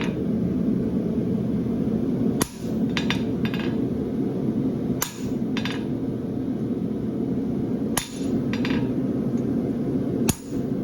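Farrier's hammer striking a creasing tool into a steel horseshoe bar on the anvil, marking the crease: four ringing metal blows about two and a half to three seconds apart, some followed by lighter taps, over a steady low hum.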